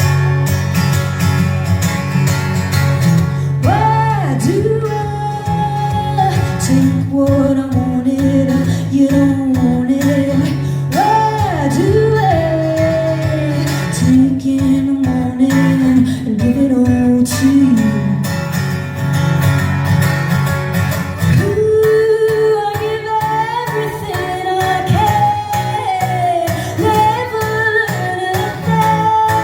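Live band music: a female lead vocal sings over guitar and a heavy, steady bass line. The voice comes in a few seconds in.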